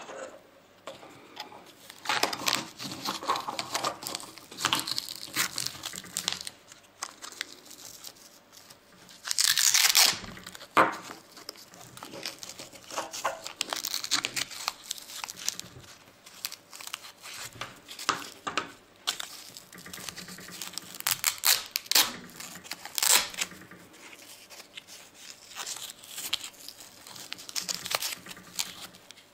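Black Velcro hook-and-loop strap being ripped apart and pressed together, with rasping rips and handling rustles. One longer, louder rip comes about a third of the way through.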